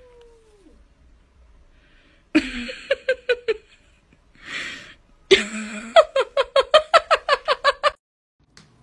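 A cat with its back arched at a dog hissing in several short bursts. A rapid stuttering run of pitched pulses, about five a second, comes twice, the longer one near the end.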